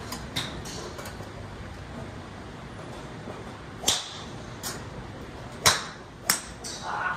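Golf balls struck by wood-type clubs: a sharp crack about four seconds in and two more in quick succession near the end, with smaller clicks between them.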